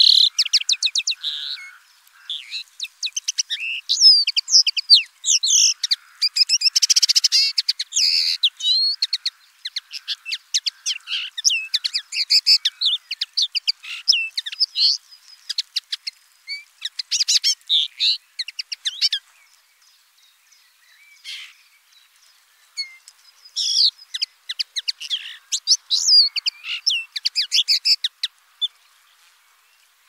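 Common linnet singing: a fast, twittering song of chirps and short trills in repeated bursts, with a lull of a few seconds about two-thirds of the way through.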